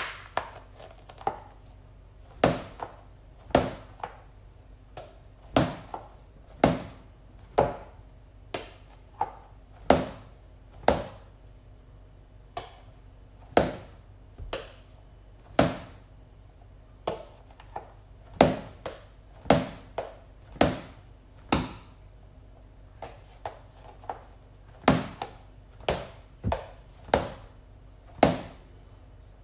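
A series of sharp taps or knocks at an uneven pace, roughly one or two a second, each with a short ring, over a faint steady hum.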